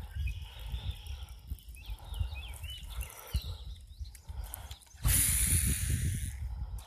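Low outdoor rumble with a few faint chirps; about five seconds in, a loud rushing hiss starts abruptly and fades out over nearly two seconds.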